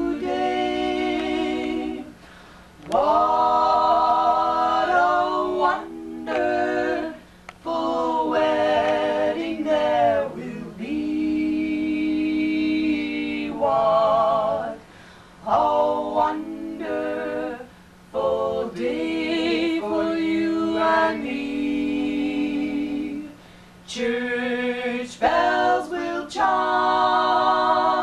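A female vocal trio singing a cappella in close harmony: long held notes in phrases, with short pauses between them.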